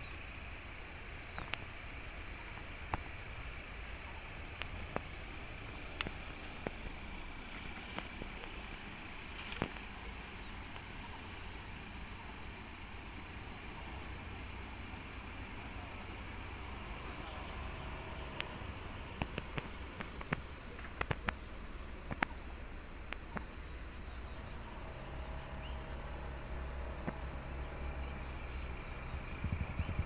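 A steady, high-pitched chorus of insects, over a low rumble. A few sharp clicks come about two-thirds of the way through, and the insect sound then fades.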